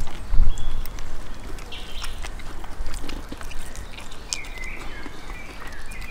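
Close, wet eating sounds: chewing and lip-smacking, with small clicks and smacks as meat is torn from rabbit pieces by hand.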